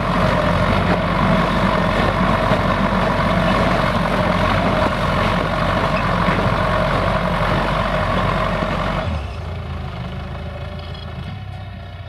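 Belarus MTZ-82 tractor's four-cylinder diesel engine running steadily under load while pulling a plow through frozen, snow-covered ground. About nine seconds in, the engine sound drops suddenly and becomes quieter.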